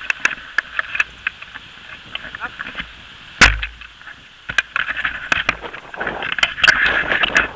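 Clicks and knocks of a camera rattling on its mount during a tandem paraglider's landing, with a heavy thump about three and a half seconds in. A rush of wind on the microphone swells near the end.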